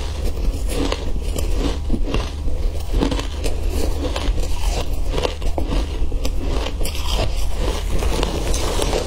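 Crushed ice coated in matcha powder being chewed close to a clip-on microphone: a dense, irregular run of crackling crunches over a steady low hum.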